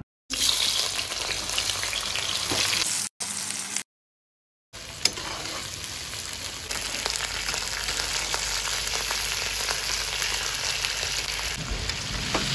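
Whole spices frying in hot oil in a cooking pot, sizzling steadily as the base for biryani is started, with one sharp tap about five seconds in. The sizzle drops out to silence twice near the start, where the clip is cut.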